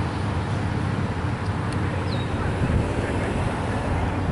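Wind buffeting the microphone, a steady low rumble, with a brief high chirp about two seconds in.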